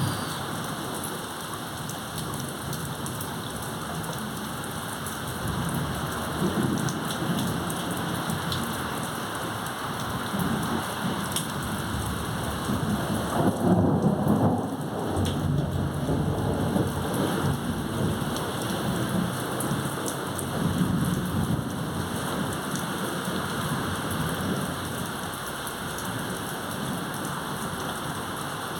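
Heavy rain pouring steadily, with thunder rumbling low several times; the loudest roll comes about halfway through.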